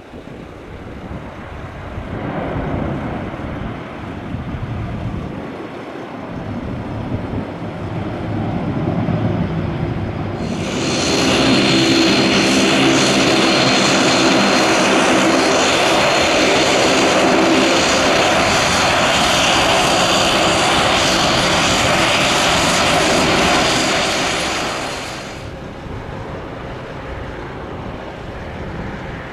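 Bombardier Q400 turboprops running: the engine and propeller sound of a distant aircraft on the runway. About ten seconds in, a much louder close-up of a Q400 cuts in, a steady turbine whine over a propeller drone. It falls away after about fifteen seconds to the quieter sound of an approaching Q400.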